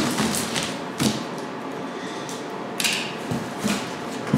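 Cardboard shipping box being opened by hand: scattered knocks and taps on the cardboard, the sharpest right at the start, with a short rustling rasp about three seconds in as the seam is worked open.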